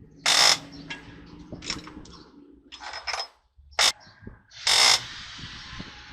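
Mechanic's tools working on a truck axle hub: about five short, sharp bursts of noise a second or so apart, with small knocks and clicks between them.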